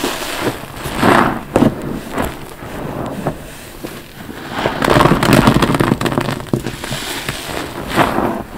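A wet, soapy sponge squeezed by hand again and again, its foam squelching and crackling with each press, one longer squeeze about halfway through.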